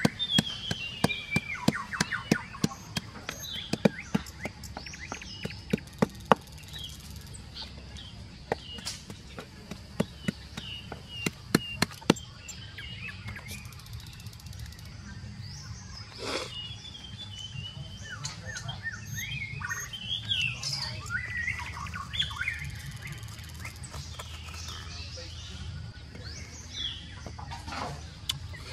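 Wooden pestle pounding in a small mortar, quick sharp knocks several times a second that stop about twelve seconds in. Birds chirp throughout.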